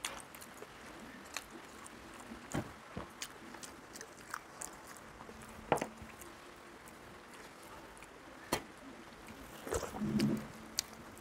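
A person eating rice and curry by hand: close chewing and mouth sounds with scattered sharp clicks, and a brief low hum near the end.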